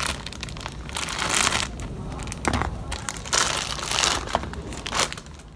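Thin clear plastic bag crinkling and rustling in hand as it is pulled open and off a fried catfish, in a series of bursts. The last burst comes about five seconds in.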